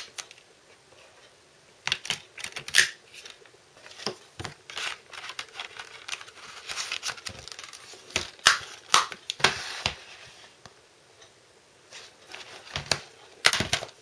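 Plastic Blu-ray/DVD cases being handled: irregular sharp clicks and clacks of the cases, with some rustling of the paper insert. The loudest clacks come about two seconds in, again around eight to ten seconds in, and near the end.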